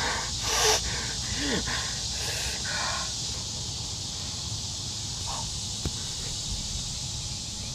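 Steady background hiss, with a few faint short sounds in the first three seconds and a single sharp click about six seconds in.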